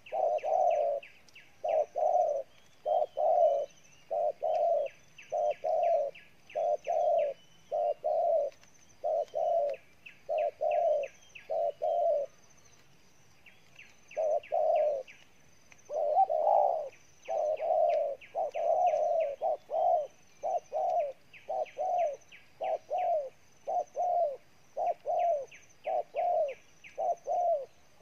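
Spotted doves cooing: a long run of low coos, a little over one a second, with a short break a little before the middle. This is the 'gù' bow-coo of male doves. A faint, rapid, high chirping runs behind the coos.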